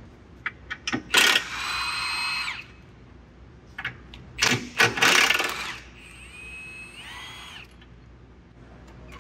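Power drill running in three short bursts, each a high steady whine that ends abruptly, preceded by a few sharp clicks.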